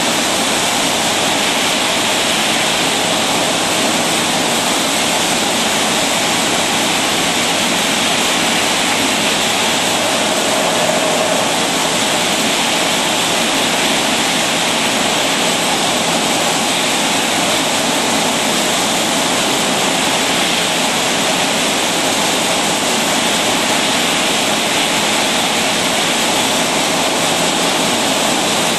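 Steady, even rushing noise from a rotary liquid-filling machine running, with no separate clinks or knocks standing out.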